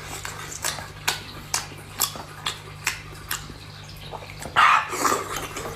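Close-up eating sounds of someone chewing sea snails and shellfish: a series of short wet mouth clicks and smacks, roughly two a second, with a longer slurp about four and a half seconds in.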